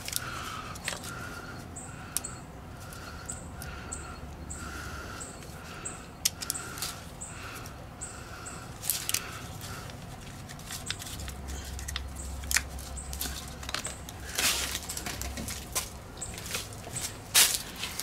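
A 12-volt cigarette-lighter plug being pushed and wiggled in its socket on a car battery: scattered clicks and plastic rattles, mostly in the second half. The cooler does not start, because the connection is dirty. Through the first half, a small high chirp repeats about twice a second.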